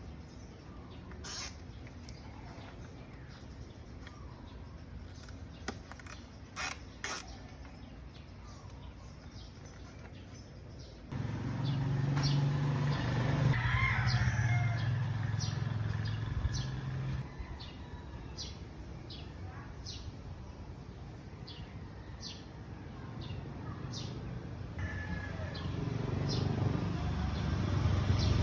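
Outdoor background sound with short bird chirps repeating every second or so. A low steady hum starts suddenly partway through and stops a few seconds later, and road-traffic-like noise swells near the end.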